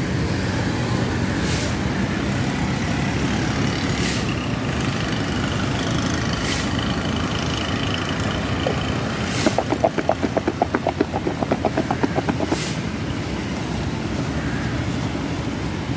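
Steady street traffic rumble with a few isolated clicks. From about halfway through, a quick run of light rattling taps lasts about three seconds as a plastic shaker cup of red chili powder is shaken over the guava.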